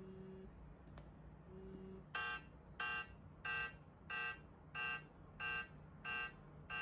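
A series of short electronic beeps, one pitched tone repeated evenly about one and a half times a second, starting about two seconds in. Eight beeps are heard.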